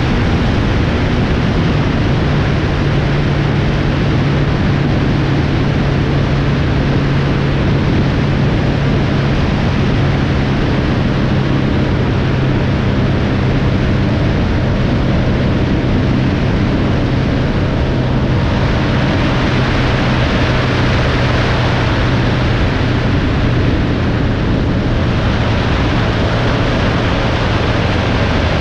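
Vehicle driving on a highway: a steady engine drone under heavy road and wind noise. The hiss grows brighter for a few seconds in the second half, and the engine tone fades near the end.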